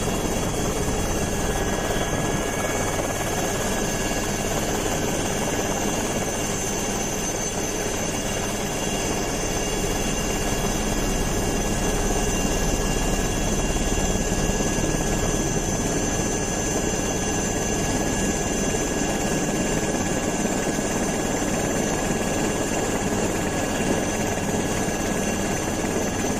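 Helicopter engine and rotor noise, running steadily, with a constant high turbine whine over a low rumble.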